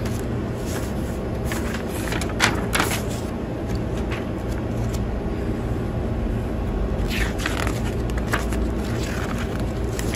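A paper instruction booklet being handled and its pages turned, rustling and crinkling a few times, over a steady low hum.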